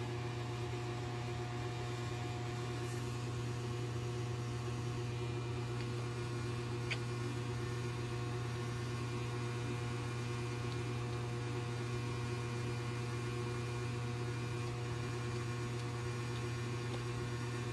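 Steady low hum of a running motor or electrical appliance, even and unchanging, with a single faint click about seven seconds in.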